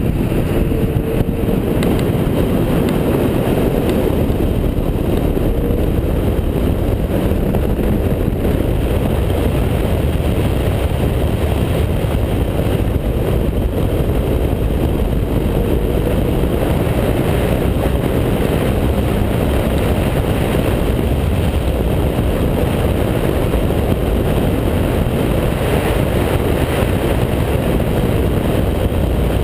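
Mazda MX-5 Cup race car's four-cylinder engine running at speed on track, largely covered by a steady, heavy rush of wind buffeting the microphone at the open cockpit. The overall level stays loud and even throughout.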